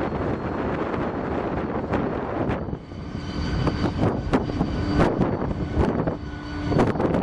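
A freight train's covered hopper cars rolling past close by: a steady rumble of wheels on rail, broken by sharp clicks as the wheels cross the rail joints. From about three seconds in, a steady whine of several tones joins it and fades near the end.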